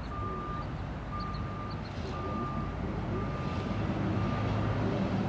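Truck's reversing alarm beeping steadily, about one half-second beep each second, over the low rumble of a truck engine that grows louder near the end.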